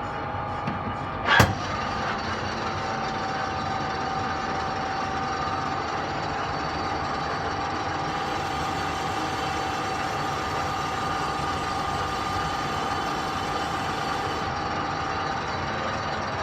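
Workshop machinery running steadily with a steady whine, and a single sharp metallic knock about a second and a half in.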